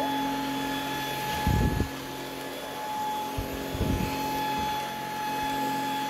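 Stick vacuum cleaner running steadily on a laminate floor, a continuous motor whine with a fixed pitch. Two short low bumps stand out, about one and a half and four seconds in.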